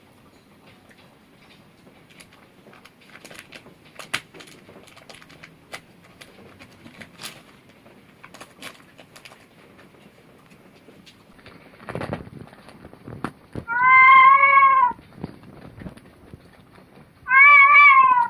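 A domestic cat meowing twice, two loud drawn-out meows of about a second each, the second falling in pitch at its end. Faint scattered clicks come before them.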